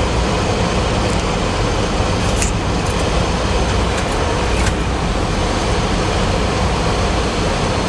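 Steady rush of airflow and engine noise on a Boeing 737-400 flight deck on final approach, with landing gear down and flaps at 30. A few faint ticks sound over it.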